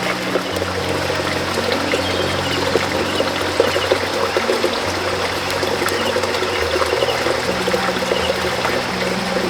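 Water running and trickling steadily, with soft background music of held low notes underneath.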